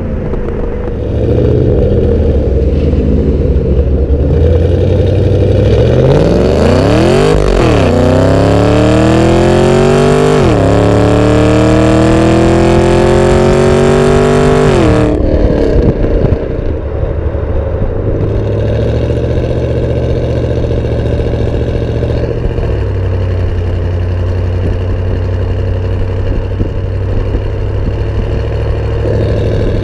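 2013 Camaro ZL1's supercharged 6.2-litre V8 exhaust at the tailpipes while driving. Steady cruising gives way about six seconds in to hard acceleration, the revs climbing and dropping at two upshifts and getting louder. About halfway it cuts off sharply as the throttle is lifted, then settles back to a steady, lower cruise.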